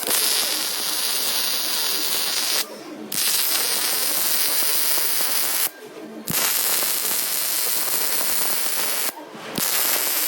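MIG welding arc running with a steady hissing crackle, breaking off briefly three times as the torch trigger is released between welds.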